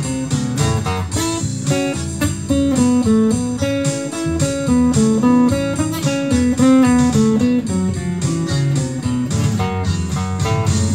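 Solo acoustic guitar playing an instrumental passage: a steady run of plucked single notes and chords, with no singing.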